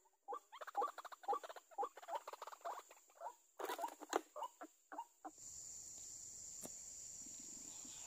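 White-breasted waterhen calling: a rapid run of harsh, repeated notes, several a second. About three and a half seconds in, the spring snare catches the bird and it flaps wildly, a short burst of noisy rustling, followed by a few more calls. From about five seconds on, only a steady faint hiss remains.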